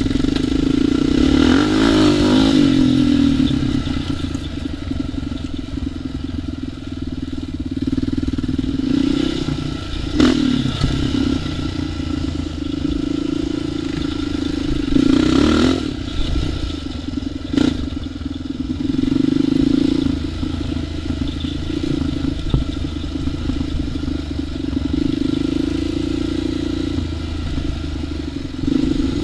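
ATV engine running under changing throttle, its note swelling and easing, with a few short louder surges and one sharp knock about two-thirds of the way through.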